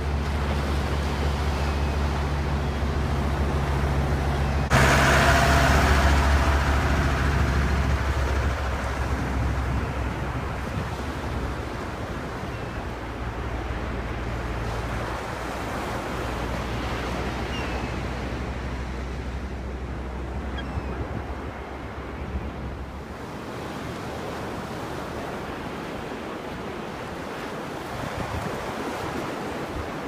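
Sea surf on a sandy beach: waves breaking and washing up the shore, with one loud wave crash about five seconds in that fades away over several seconds. A steady low hum runs under it and stops about two-thirds of the way through.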